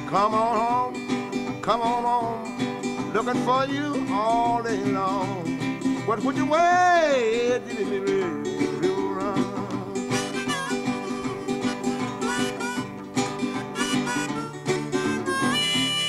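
Country blues instrumental break: a guitar picking a steady accompaniment while harmonica notes bend up and down over it, most strongly in the first half.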